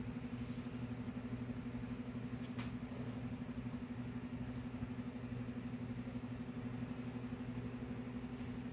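Kitten purring steadily, a low fast-pulsing hum, with a faint click about two and a half seconds in.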